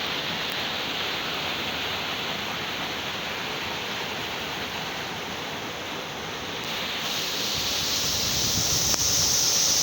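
Waterfall: a steady rush of falling water, growing louder and brighter over the last few seconds.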